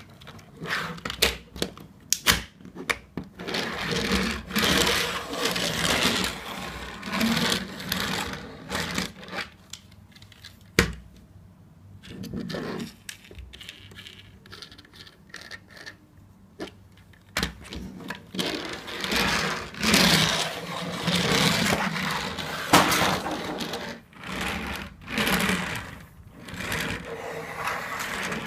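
Hasbro Transformers Robots in Disguise Bumblebee plastic toy being handled and folded from robot into car: plastic parts rubbing and sliding, with a few sharp snaps as pieces click into place. Near the end the finished toy car is pushed along the tabletop.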